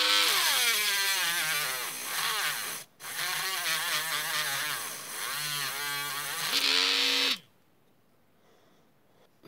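Homemade mini drill's small DC motor spinning a sandpaper drum against the edge of a tape measure blade. The whine drops in pitch and wavers as the motor bogs under the load, cuts out for a moment about three seconds in and starts again, then rises in pitch as the drum comes free and stops about seven seconds in.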